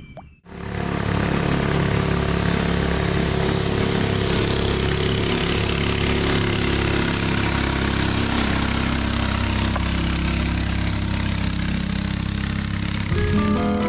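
An engine running at a steady speed, starting abruptly about half a second in. Plucked guitar music comes in near the end.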